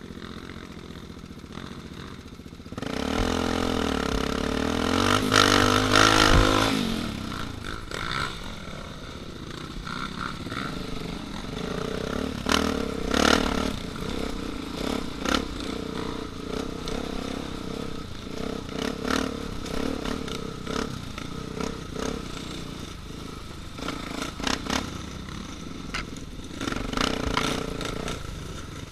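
Enduro dirt bike engine revving loudly and pulling away about three seconds in, the pitch rising and falling, then running at varying speed over rough ground. Stones and the bike's chassis clatter and knock now and then throughout.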